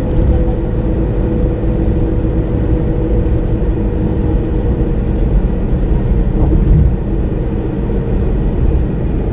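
Road and engine noise heard inside a vehicle cruising at speed: a steady low rumble with a constant hum.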